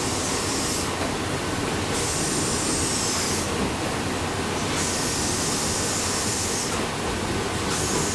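Paddle steamer's steam engine running, a steady dense mechanical noise with a high hiss that comes and goes.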